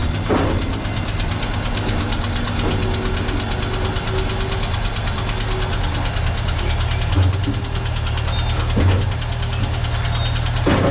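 1976 Jeep Cherokee engine idling steadily with a fast, even ticking.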